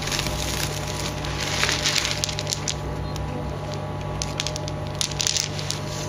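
Plastic bag crinkling and rustling right at the microphone, with sharper crackling bursts about two seconds in and again near the end, over a steady low hum.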